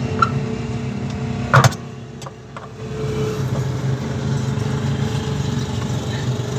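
A steady low mechanical hum, fading briefly about two to three seconds in, with a single sharp knock about a second and a half in.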